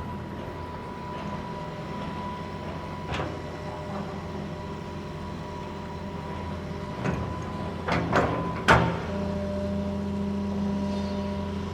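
Small earthmoving machine's engine running steadily, with a few sharp clanks, several of them close together about seven to nine seconds in. After that the engine note gets louder and holds steady.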